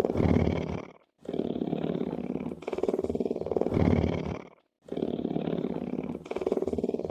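Big wild cat purring in long breaths. Each breath is a rapid pulsing purr about three and a half seconds long, and short silent gaps fall about a second in and about four and a half seconds in.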